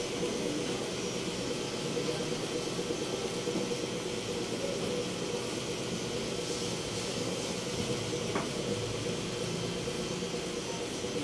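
Steady electric motor hum with a whirring noise behind it, holding an even pitch throughout, and a single faint tap about eight seconds in.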